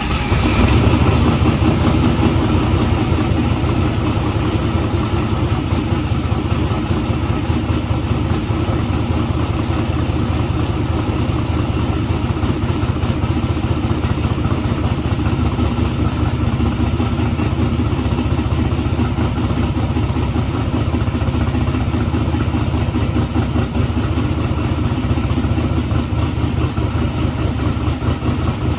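Twin-turbo small-block Ford V8 catching at the very start, then running at a loud, steady idle.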